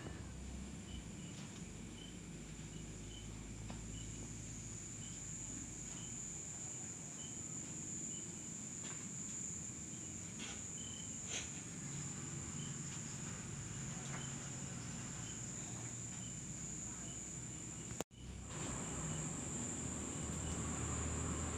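Crickets chirring steadily in the background as one unbroken high-pitched drone, with a few faint ticks and rustles. The sound cuts out for a moment near the end.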